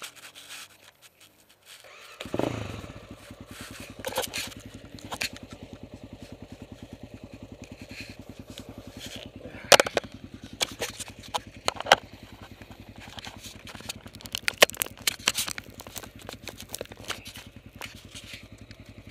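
An off-road motorbike or quad engine starts about two seconds in, its revs falling as it catches, then runs at a steady, evenly pulsing idle. Scattered sharp clicks and knocks sound over it.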